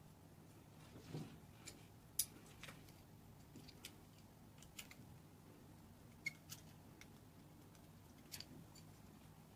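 Faint scattered clicks and taps of plastic connectors and cable plugs being handled and fitted at the back of a mobile radio, about ten in all, the sharpest about two seconds in, over a faint steady low hum.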